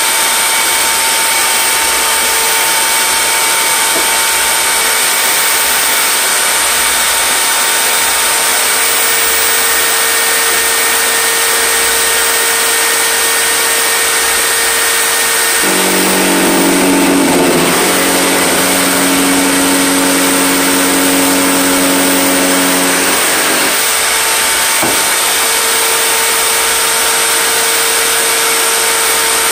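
A table-mounted power cutter's motor running continuously with a steady high whine. From about halfway in, for roughly eight seconds, the sound drops to a deeper, slightly louder tone, then returns to the steady whine.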